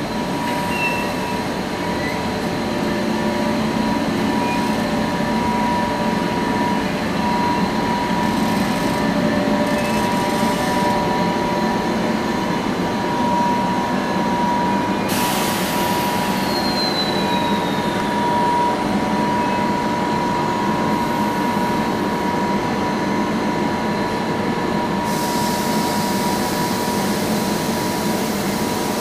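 Narrow-gauge electric trains in a station: a steady high electrical whine with a low hum underneath from a standing electric locomotive. About halfway through, a burst of hiss and a short falling squeal.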